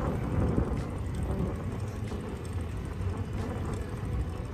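Wind buffeting the microphone with a low, uneven road rumble while riding a mountain bike, with a few faint knocks.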